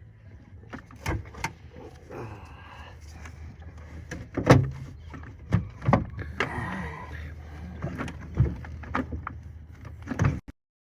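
Heavy lead-acid car battery being rocked and twisted up out of a pickup's battery tray: irregular knocks and clunks with scraping of the case against the tray and surrounding parts, the loudest clunk about halfway through, over a steady low hum.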